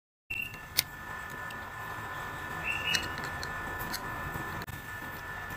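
Small sharp clicks and taps of a screwdriver and metal parts against a spinning reel's bail arm as its screw is driven in, the loudest about a second in, over a steady faint high whine.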